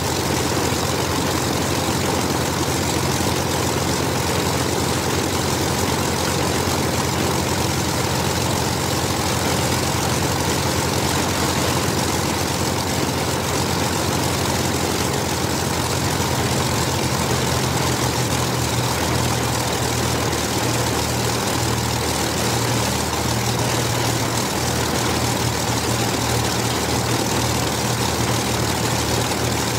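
The two Rolls-Royce Merlin V-12 engines of a de Havilland Mosquito run steadily on the ground with their propellers turning, a continuous deep drone. A little past halfway the low note shifts slightly and begins to waver.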